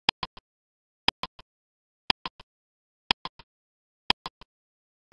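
Countdown timer sound effect ticking once a second, five times: each tick is a sharp click followed by two quicker, softer clicks.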